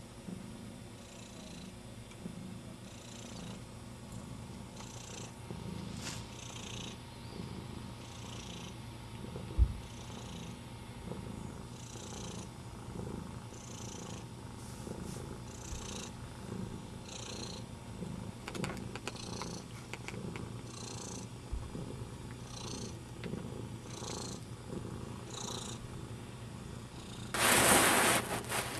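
Domestic cat purring steadily close to the microphone, with a breath about once a second. There is a short bump about ten seconds in and a loud, noisy burst of about a second near the end.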